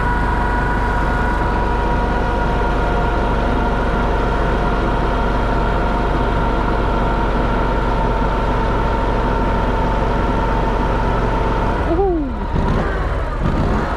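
Argo Bigfoot 6x6 amphibious ATV's engine running steadily under throttle while the machine swims afloat. A steady whine sits over a low rumble. About twelve seconds in, the engine note briefly drops and wavers.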